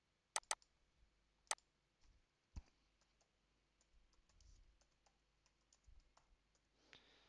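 Computer mouse clicking: a quick double-click about half a second in, then two single clicks. After that comes a run of faint, light keyboard keystrokes.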